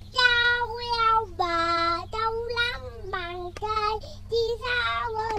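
A young child singing a simple tune in a high voice, holding each note for about half a second and stepping up and down between them.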